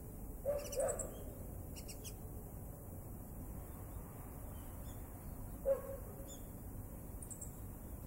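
Small birds chirping a few times, short and high. There is also a short, low call about half a second in and again near six seconds, and the one near six seconds is the loudest sound.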